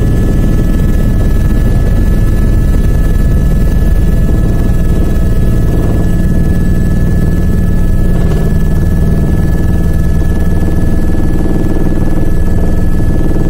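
Helicopter cabin noise from inside the passenger cabin: the steady, loud drone of the rotor and engine, with a thin, steady high whine over it.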